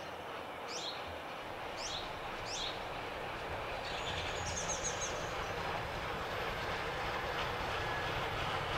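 Bulleid West Country Pacific steam locomotive 34046 Braunton and its train passing at a distance, a steady rumble that slowly grows louder. Birds chirp a few times in the first half.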